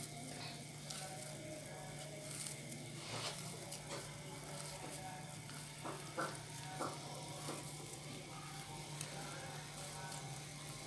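Curry gravy boiling in a wok: a faint, steady hiss with scattered small pops, over a low steady hum.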